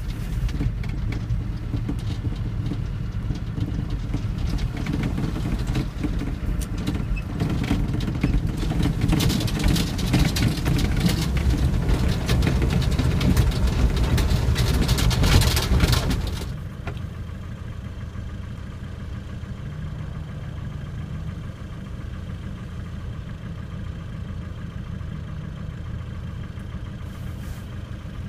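Off-road vehicle engine running under load over rough ground, with many knocks and rattles, growing louder until about 15 seconds in, then dropping suddenly to a steady, quieter idle.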